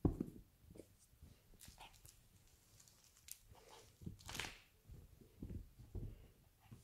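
A caracat kitten playing on a fabric sofa, pouncing on a toy mouse: soft dull thumps of its landings, the loudest right at the start and a few more in the second half, with a brief rustle of fabric and cushions about four seconds in.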